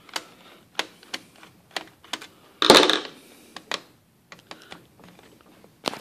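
Screwdriver and hands working the screws and plastic underside of a ThinkPad T61 laptop: a string of small sharp clicks and taps, with one louder clatter a little under three seconds in.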